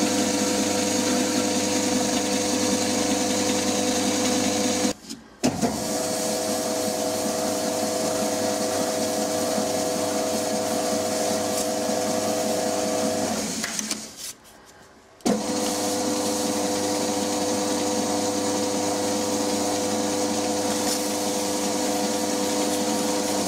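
A benchtop metal lathe with a 750 W motor runs steadily, its motor and gearing giving a constant whine over a hiss, while abrasive is held against the spinning steel bar to smooth it. The sound drops out briefly about 5 seconds in and again about 14 seconds in, and comes back each time with a click.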